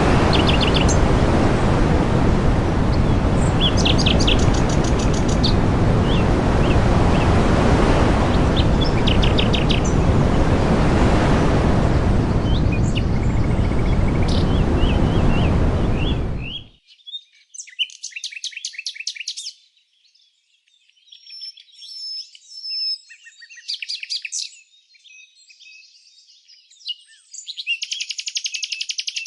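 Small birds chirping and trilling over a loud, steady rushing noise. About two-thirds of the way through the rushing cuts off abruptly, leaving the birds alone: short high chirps and bursts of rapid trilled notes.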